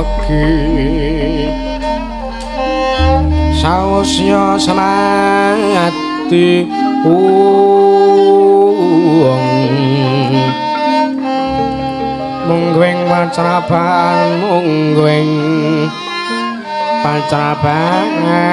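Javanese gamelan (karawitan) music playing, with a melody line that wavers in pitch over sustained low tones.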